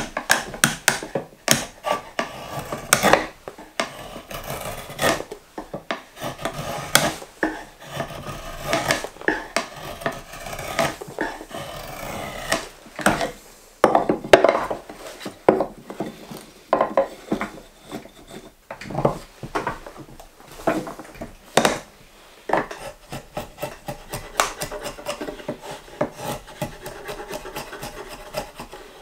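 Drawknife shaving a green maple spoon blank held in a shavehorse: repeated slicing strokes, about one to two a second, each a short rasping cut as a shaving peels off the wood.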